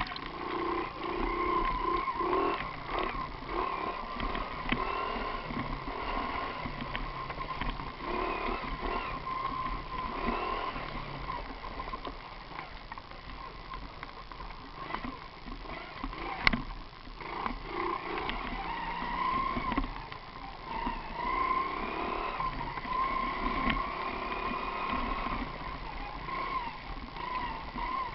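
Mini moto's small engine running, its high whine wavering up and down in pitch as it is revved, with a sharp click about halfway through.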